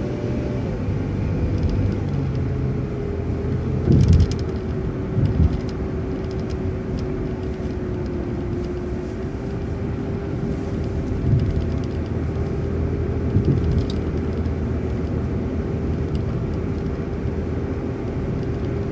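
City transit bus driving: a steady drone of engine and road noise with a held whine, which steps down in pitch about a second in. A few knocks stand out, the loudest about four seconds in, another soon after, and one more near thirteen seconds.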